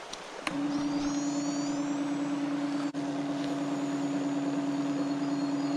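Small electric pump of an environmental-DNA water-filtering rig, switched on with a click about half a second in and then running with a steady hum as it draws creek water through the tubing and filter.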